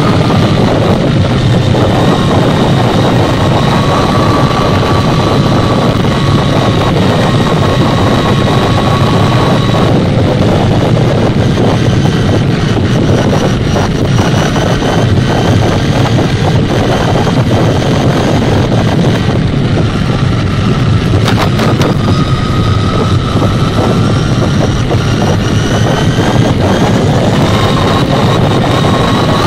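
Kyosho Mini Inferno 1:16 electric RC buggy at speed: a loud rush of tyre and wind noise with a thin whine from its brushless motor and gears that slowly rises and falls in pitch.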